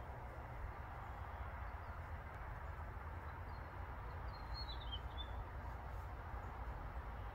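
Steady outdoor background noise with a low rumble, and a bird chirping briefly, a short twittery phrase about four and a half seconds in.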